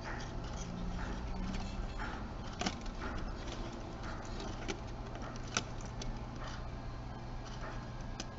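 A few light, sharp clicks and faint scratching from small camcorder parts being handled and fitted together during reassembly, over a steady low hum.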